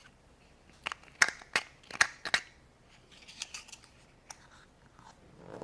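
Sharp plastic clicks and snaps of Play-Doh stamper toy pieces being handled, about six in quick succession over a second and a half, then softer rustling and light taps.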